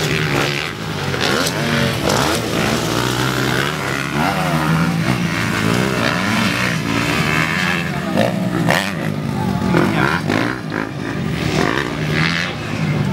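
Motocross dirt bikes' engines revving, their pitch rising and falling repeatedly as the riders work the throttle over the track's jumps.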